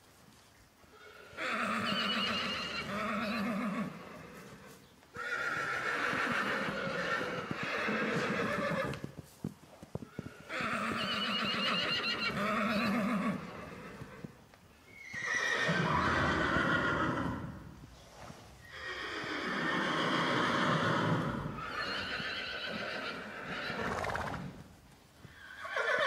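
Lipizzaner horses neighing over and over, a series of long loud calls every few seconds. These are the distressed calls of mares and foals just separated at weaning.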